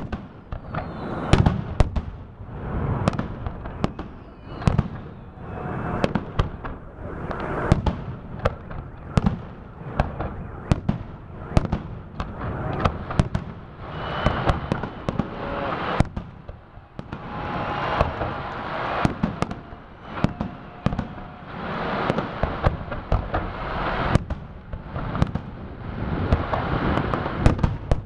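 Aerial fireworks salute: shells bursting in an irregular run of sharp bangs, about one or two a second, with stretches of denser noise between them.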